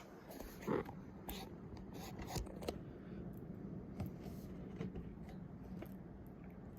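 Faint handling noises: a few light clicks and soft rubbing or scraping, spread unevenly.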